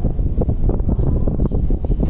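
Wind buffeting the microphone on a Star Ferry under way across the harbour: a loud, ragged, gusting rumble.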